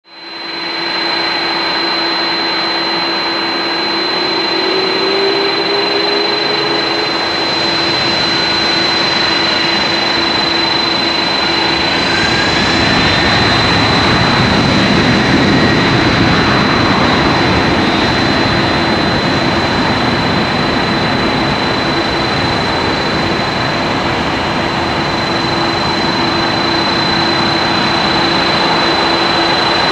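Boeing 767-300's twin turbofan engines at takeoff thrust as the airliner accelerates down a wet runway and rotates: a loud, steady jet noise with a high whine, growing a little louder over the first half, with a brief rising whine near the middle.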